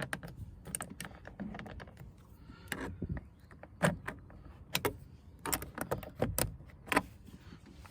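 Irregular clicks, clinks and knocks of a screwdriver and the car's plastic door trim being handled, about a dozen sharp strikes with the loudest near the middle and again about seven seconds in.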